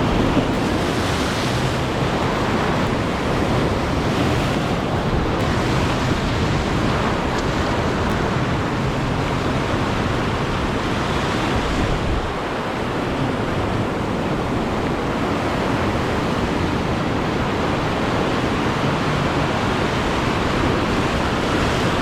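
Steady surf washing over a shallow coral reef, mixed with wind buffeting the microphone.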